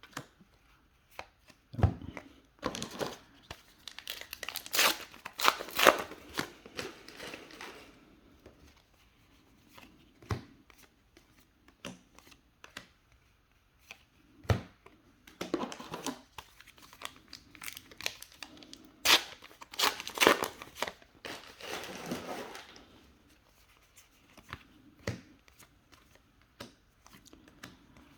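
Foil trading card booster packs being torn open and crinkled, in two long spells of rustling, with short clicks and taps of cards being handled in between.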